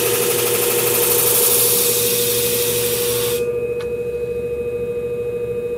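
Steel shear blade being ground against the spinning coarse abrasive disc of a Scimech flat-hone sharpening machine, a steady grinding hiss while the curved blade's tip is tilted down to raise a burr. The hiss cuts off suddenly about three and a half seconds in as the blade is lifted off, leaving a steady hum.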